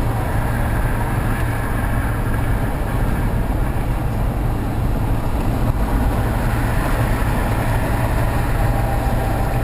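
Steady vehicle running noise: a low engine drone under a constant hiss, unchanging throughout.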